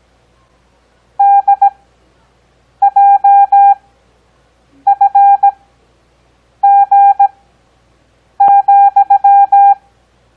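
Morse code practice tones: five characters keyed as beeps of one steady pitch, each a quick cluster of dots and dashes sent at a 17 words-per-minute character speed, with long Farnsworth gaps of about a second between characters for an overall 6 words per minute.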